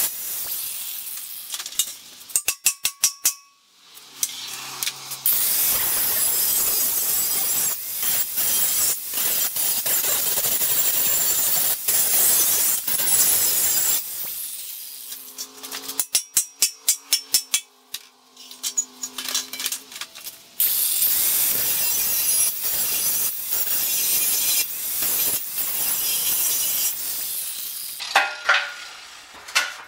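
Angle grinder grinding rusty steel tubing in long passes, broken by short pauses and two runs of quick stuttering contacts. Near the end a hammer strikes the steel a few times with a ringing clang.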